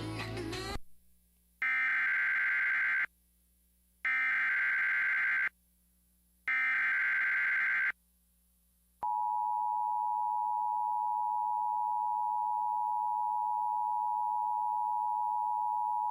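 Emergency Alert System activation for a severe thunderstorm warning: three short bursts of the SAME digital header, a harsh electronic warble, each about a second and a half long with a second's gap. About nine seconds in, the steady two-tone EAS attention signal starts and holds.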